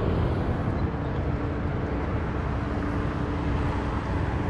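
Steady low rumbling outdoor background noise, with a faint steady hum from about a second in until near the end.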